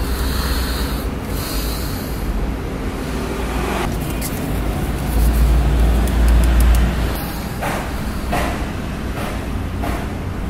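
Plastic wrapping crinkling and rustling as it is peeled off a can of airsoft green gas, with a few short handling knocks, over a steady low rumble.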